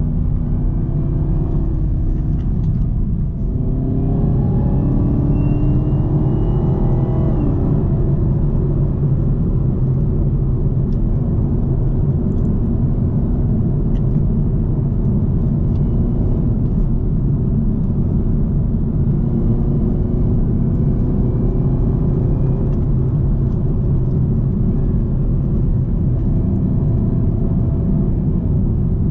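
2018 Camaro ZL1's supercharged 6.2-litre V8 running under load over steady engine and road rumble. Its note and supercharger whine climb in pitch as it accelerates, about four seconds in and again around twenty seconds in.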